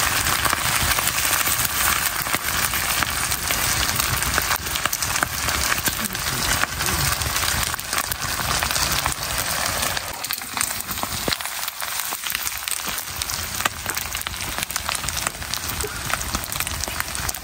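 Chicken frying in a pan: a steady sizzling hiss with many small crackling spatters.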